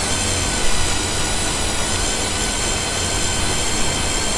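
Electric drill spinning the pinion of a Chrysler 9.25 rear axle with its new 3.92 ring and pinion, turning the ring gear against a rag's drag: a steady whine of the drill motor and meshing gears. The gears are being run to roll a gear-marking-compound contact pattern while setting up the axle.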